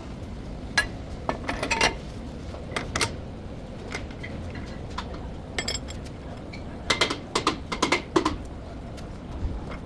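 Metal tools and parts clinking and knocking against each other during brake work, in irregular bunches of sharp clinks, busiest near the end.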